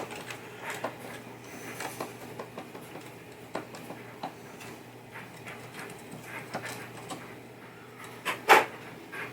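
Light clicks and rubbing of small pinball parts being handled as pop bumper bases come off the playfield, with one sharper clack near the end.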